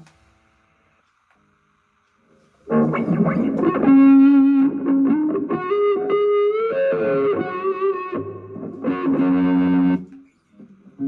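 Epiphone SG Special electric guitar played through a Zoom G1Four effects pedal and Vox MV50AC amp into a DIY wine-box speaker cab. It starts after a couple of seconds of silence with struck chords, then plays a single-note phrase with bends and vibrato, stops about ten seconds in, and a new chord starts near the end.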